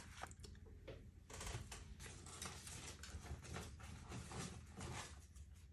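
Faint rustling and light taps of paper being handled as a sticker is pressed and smoothed onto a cardboard journal page, easing off about five seconds in.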